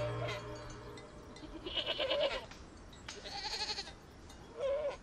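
Young goats bleating: three separate calls, about two, three and a half and four and a half seconds in.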